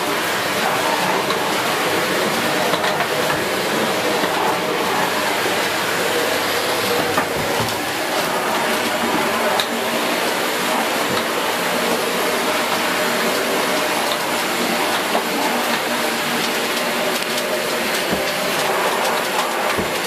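Dyson Big Ball Animal (CY23) cylinder vacuum cleaner running steadily while its floor tool is pushed over a hard floor, with a few small clicks.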